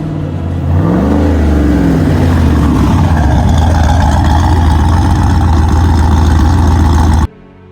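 GMC Sierra pickup engine revving: the pitch climbs and falls back about a second in, then it runs loud and steady until it cuts off abruptly near the end.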